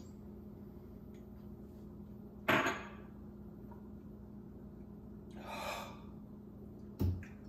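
A man's sharp, harsh exhales and a cough after a neat swallow of overproof rum: a loud breathy burst about two and a half seconds in, a softer breath near six seconds and a short cough-like burst near the end.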